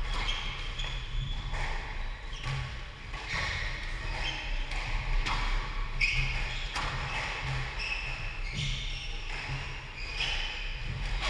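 Squash court sounds between points: rubber-soled shoes squeaking on the hardwood floor and the squash ball bouncing and being knocked about, each sound echoing in the large hall.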